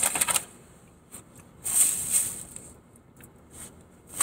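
Short bursts of rustling and handling noise, one at the start and another about two seconds in, with near quiet between.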